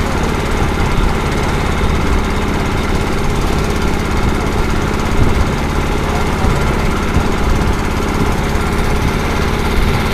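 Small boat engine running steadily at a constant speed with a fast, even chugging beat.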